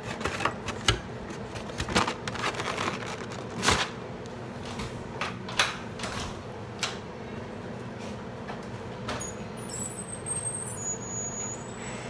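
Kitchen handling noises: a run of sharp clicks and knocks for the first several seconds, then a few quieter ticks, over a steady low hum.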